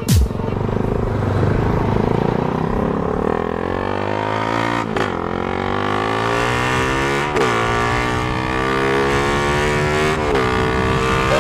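Suzuki Raider 150 carburetted single-cylinder engine running through an open HGM exhaust pipe while the motorcycle accelerates through the gears. The engine pitch climbs steadily, then dips and climbs again at each of three upshifts, about five, seven and a half and ten seconds in.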